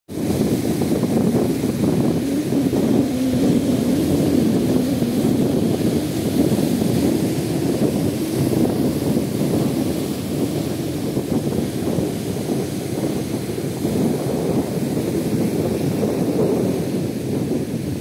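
Ocean surf breaking against a breakwater of concrete tetrapods and rocks, a continuous rush, with wind buffeting the microphone.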